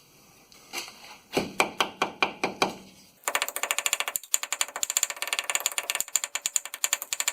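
A tool working on the rear suspension's U-bolt hardware. A few slower metallic knocks come about a second in, then a fast run of sharp metallic clicks and rattling, about ten a second.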